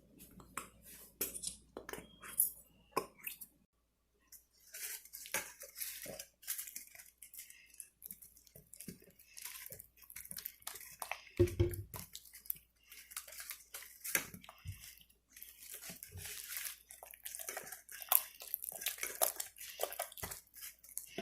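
Gooey glow-in-the-dark glue slime being stirred and squished in a bowl as the activator mixes in: a run of sticky, wet clicks and squelches, with a short pause about four seconds in and a dull knock about halfway.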